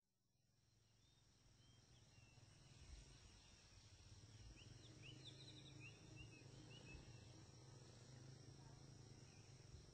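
Faint nature ambience fading in: a steady high insect drone with a scatter of short bird chirps between about two and seven seconds in.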